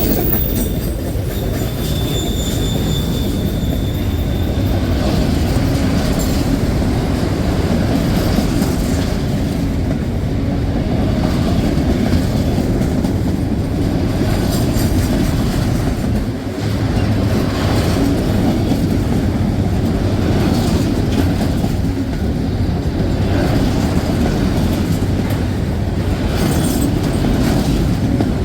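A train passing close by: a loud, steady rumble of rolling railcars with wheels clicking over the rails, and a high, steady wheel squeal during the first few seconds.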